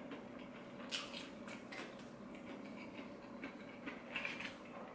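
Faint chewing of crispy fried chicken, with scattered small crackles; a few more crackles near the end as hands rummage through the pile of crispy fried chicken strips. A faint steady hum runs underneath.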